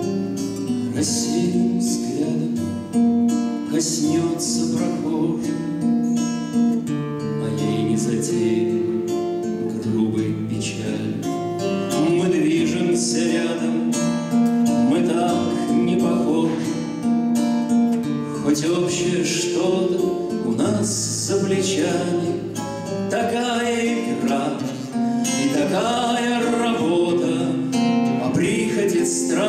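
Russian bard song (avtorskaya pesnya): a man singing to his own nylon-string classical guitar accompaniment.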